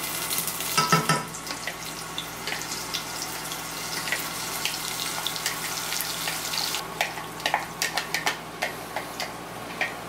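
Chopped chili paste of shallots, tomato, peppers and bird's eye chilies sizzling as it drops into hot oil in a saucepan. The dense crackling sizzle thins out about seven seconds in, leaving scattered clicks and scrapes of the spatula against the food processor bowl.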